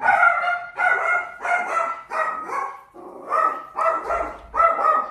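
A dog barking repeatedly, about two sharp barks a second, with a short pause partway through.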